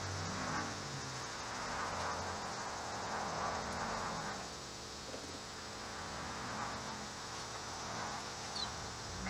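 Rubbing compound being worked by hand into the plastic tail-light filler panel of a third-generation Pontiac Firebird: slow, repeated rubbing strokes that swell and fade every second or two.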